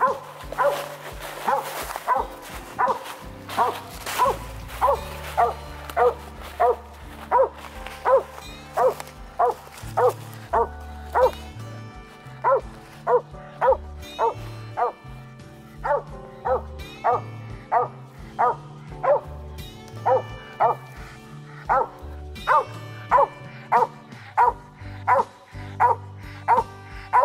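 Mountain cur barking steadily up a tree, about two barks a second with a few short breaks: the tree bark that tells the hunters it has game treed. Background music plays underneath.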